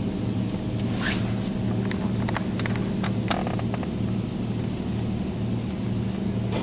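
NuStar Soft Touch Plus automatic car wash running, heard from inside the truck's cab: a steady low machinery hum that pulses about twice a second, with a short swish about a second in and scattered taps on the body a little later.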